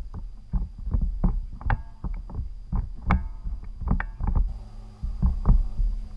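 Fishing kayak on the water, with a quick, uneven run of knocks and splashes of water against the hull, about two to three a second.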